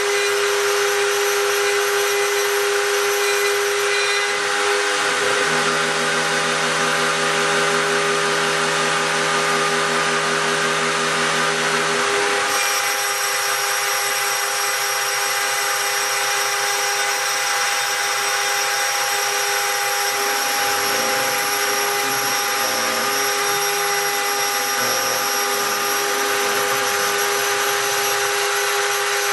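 Homemade CNC gantry router engraving brass: the spindle runs with a steady high whine and cutting hiss. Lower machine tones join from about four seconds in to about twelve, and again, wavering, past the twenty-second mark.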